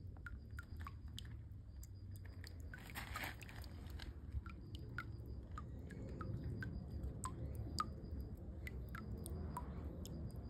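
Footsteps crunching on a loose surface: many short, irregular crunches over a steady low rumble.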